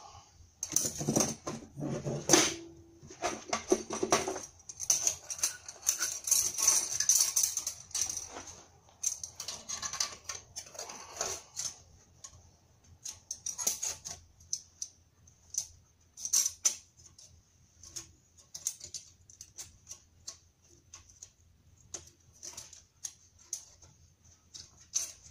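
Metal clicking, clinking and scraping as the clamp joining a turbocharger's cast exhaust housing to its center section is fitted and the assembly is handled. The handling noise is busy for the first dozen seconds, then thins to scattered light clicks and taps.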